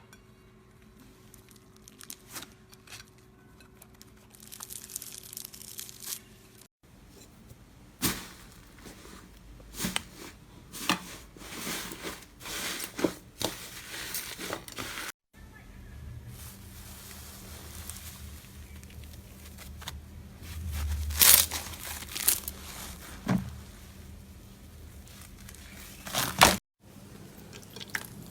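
Slime being squeezed, pressed and stretched by hand, giving wet crackling and popping clicks. The sound comes in several short clips cut together.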